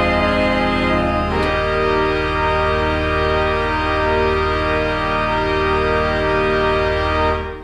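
Organ playing sustained chords, moving to a new chord about a second and a half in, then holding a final chord that releases just before the end and dies away.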